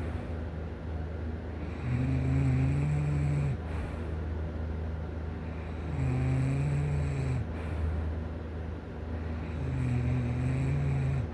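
A person snoring in sleep, three snores about four seconds apart, each lasting about a second and a half, over a steady low hum.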